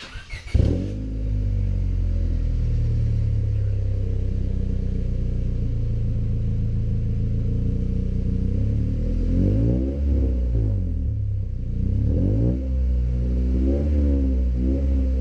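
A 2000 Honda Civic's four-cylinder engine, running through a test pipe in place of the catalytic converter, is cranked by the starter and catches within the first second with a brief loud flare, then settles into a steady idle. From about nine seconds in it is blipped several times in short revs that rise and fall.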